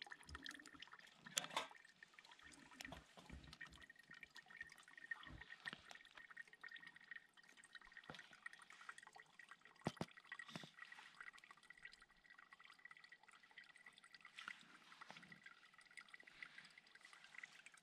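Quiet camp-cooking sounds: water dribbling from a squeeze filter into a plastic bottle, then a spoon stirring and scraping in a metal pot on a small twig-burning stove. Scattered light clicks throughout, with a faint steady high tone from about two seconds in.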